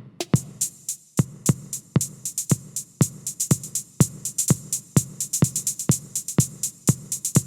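Millenium MPS-150 electronic drum kit played in a steady beat, its sampled drum sounds taken direct through a mixing desk: regular sharp drum hits, with a busy hi-hat pattern coming in just after the start.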